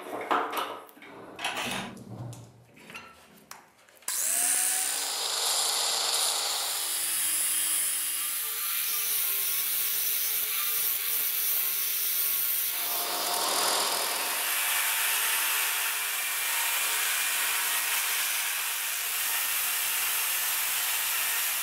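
A few knocks as the steel sledgehammer head is set in a bench vise, then an angle grinder spins up about four seconds in and grinds the steel head steadily, first with a grinding disc and later with a flap disc. The grinding changes character about two-thirds of the way through.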